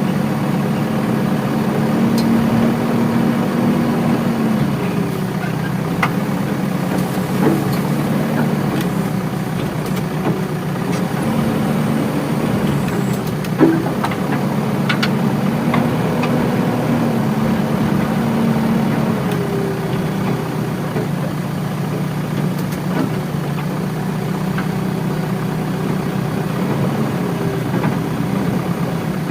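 Diesel engine of heavy earth-moving machinery running steadily near idle, its pitch stepping up and down a few times as the revs change. Occasional short clanks and knocks, the loudest about 14 seconds in.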